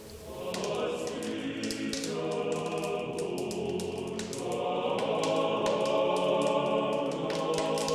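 Choir singing as closing music, coming in about half a second in with sustained, overlapping voices.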